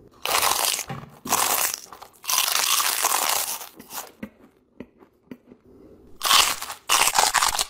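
Loud crunching of oversized rolled tortilla chips being bitten and chewed, in three bursts over the first few seconds. Then come a few small crackles, and another round of crunching near the end as a second pair is bitten.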